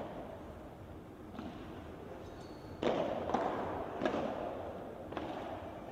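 Padel rally: a padel ball is hit by rackets and rebounds off the court and glass walls, about five sharp hits with the loudest about three seconds in, echoing in a large indoor arena.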